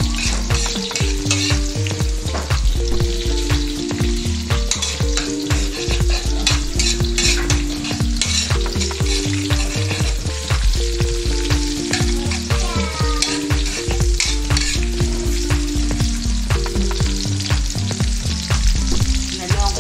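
Sliced onions sizzling in hot oil in a metal wok, stirred and scraped with a metal spatula. Background music with a simple stepping melody and a steady bass plays over it.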